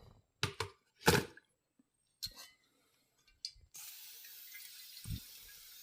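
A few short knocks and clicks, then a kitchen faucet is turned on and water runs steadily into the sink with a smooth hiss.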